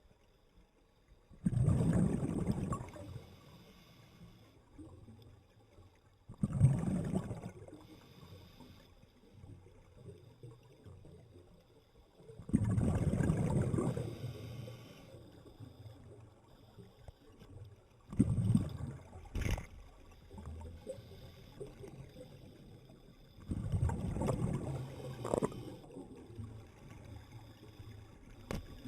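Water surging and washing in five even bursts, about every five to six seconds, with a single sharp click after the fourth.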